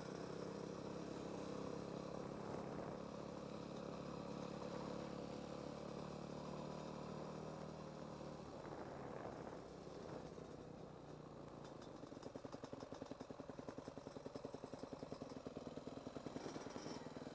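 Yamaha motocross bike's engine running at low speed while it is ridden slowly, steady at first. Past the midpoint it changes, then settles into an idle with an even pulse.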